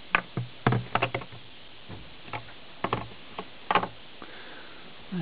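Irregular sharp knocks and clacks, about ten over four seconds, of objects being handled and moved about in a cupboard.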